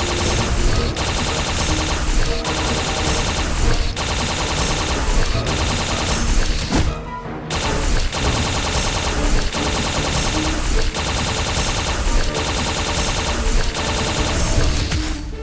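Background music with a fast, dense percussive beat, breaking off briefly about halfway through.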